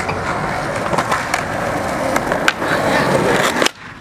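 Skateboard wheels rolling over a concrete skatepark, a steady rolling noise with a few sharp clicks, cutting off suddenly near the end.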